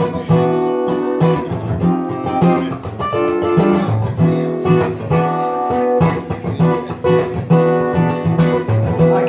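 Acoustic guitar strummed and picked in a rhythmic instrumental passage, chords and single notes changing about every half second.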